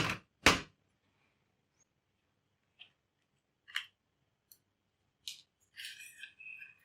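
Hand tools and small parts clicking and tapping on a laptop being opened up: two loud sharp clicks at the start, a few lighter ticks spaced a second or so apart, then a short rattling scrape near the end.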